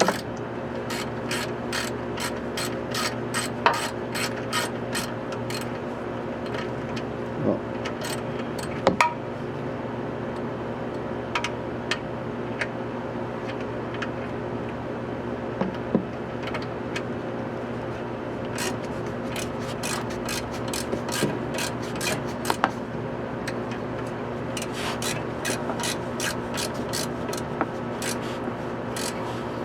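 Socket ratchet wrench clicking in runs of quick clicks with pauses between them, tightening the magnetic oil drain plug into a Nissan 350Z's oil pan, with a few louder knocks of tool on metal. A steady low hum runs underneath.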